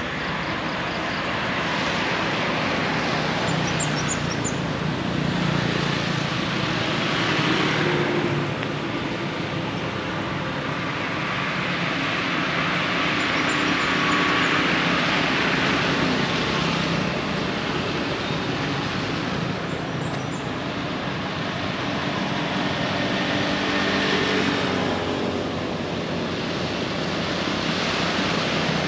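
Motor traffic passing, a steady noise that swells and fades three times as vehicles go by. A few faint high bird chirps come through it.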